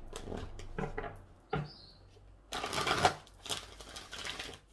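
A deck of oracle cards being shuffled by hand: a quick rattling flutter of cards about two and a half seconds in, lasting just over a second.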